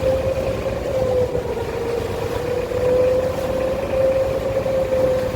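A sampan's engine running steadily under way, a constant mid-pitched whine over a low rumble.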